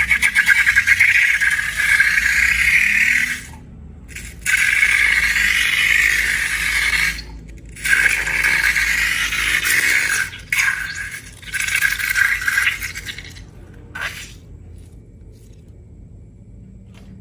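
Scraping and rattling of small hard objects in stretches of a few seconds with short breaks, dying down about three quarters of the way through.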